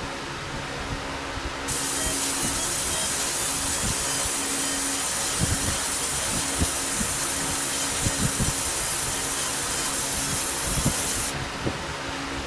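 70 W SPI fiber laser marking machine deep-engraving copper: a steady high-pitched hiss starts about two seconds in and cuts off abruptly near the end, over the machine's steady fan hum.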